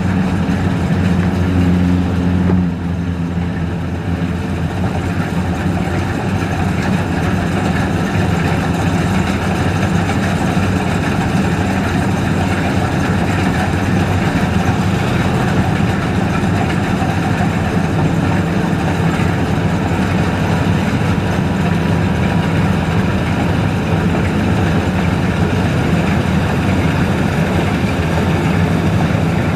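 Diesel engine of a Maxxi Bimo NDR 102L rice combine harvester running steadily. About two and a half seconds in, its note drops slightly and then holds even.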